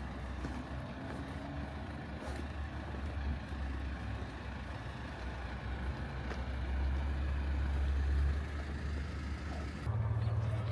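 Steady low rumble of a motor vehicle's engine and road noise, swelling briefly and then switching abruptly to a different low hum near the end.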